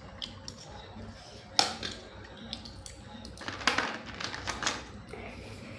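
Clicks and clatter of cockle shells being handled and pried open, with a sharp knock about a second and a half in and a run of quick clicks a little past the middle.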